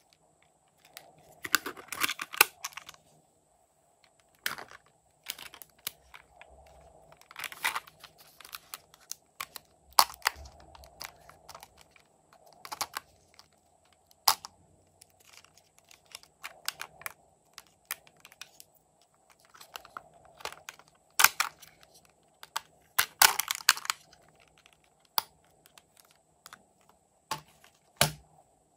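Hard plastic toy makeup case being handled and opened: irregular clicks, taps and snaps of plastic parts, some in quick clusters, as small lipstick tubes and nail-polish bottles are handled.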